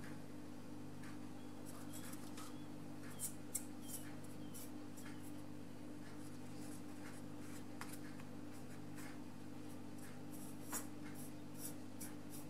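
Watercolor brush working on paper and palette: scattered light taps and scratchy strokes, in a cluster a few seconds in and another near the end, over a steady low hum.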